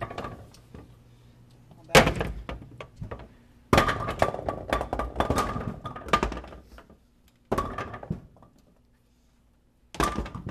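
Bowling pins being pulled by hand out of a pinsetter's deck and chutes, knocking and clattering against the metal frame and each other. The knocks come in separate bursts: one about two seconds in, a busy run through the middle, and more near the end. This is a deck jam being cleared with the machine switched off, so no motor is running.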